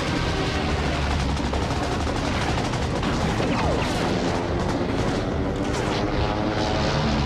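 Rapid gunfire, a dense run of cracks over a steady low rumble, with a falling whine about three and a half seconds in.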